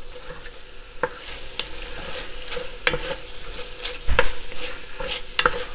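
Wooden spoon stirring cubed chicken thighs and minced garlic sautéing in hot olive oil in an enamelled Dutch oven: a steady sizzle under irregular scrapes and knocks of the spoon against the pot, with a heavier knock about four seconds in.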